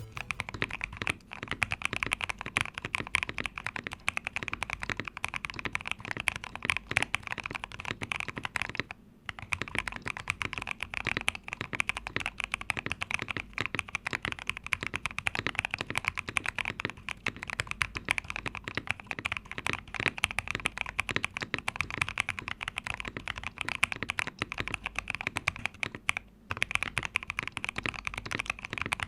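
KBD67 Lite custom mechanical keyboard with Boba U4T tactile switches being typed on fast and without let-up: a deep "thocky" typing sound. It is built with thinner PCB foam, its silicone dampener removed and Poron gaskets fitted. The typing pauses briefly twice, about nine seconds in and near the end.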